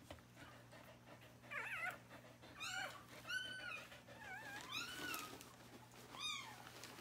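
Newborn Australian Shepherd puppy crying: a series of about six short, high-pitched squeals, each rising and falling in pitch, starting about a second and a half in.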